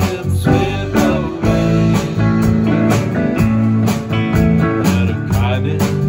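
Live country-rock band playing an instrumental break: a drum kit keeps a steady beat about twice a second under electric and acoustic guitars and pedal steel guitar, with a few sliding notes near the end.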